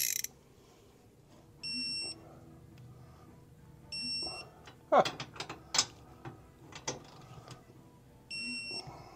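A digital torque wrench beeps three times, short electronic tones, as a socket bolt is pulled toward its 150 ft-lb setting. Between the beeps, tools and sockets click and clank, loudest about five seconds in.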